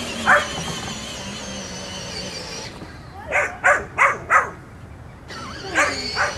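Australian Shepherd puppy barking: a bark just after the start, a quick run of four barks in the middle, and two more near the end.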